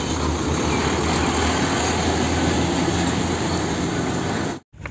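Tractor-trailer truck hauling a shipping container on the road, a steady engine and tyre noise with a low hum underneath; it cuts off suddenly near the end.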